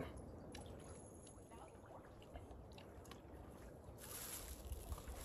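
Faint low rumble with a few light clicks and rustles of food and a plastic bag being handled; a steady hiss starts suddenly about four seconds in.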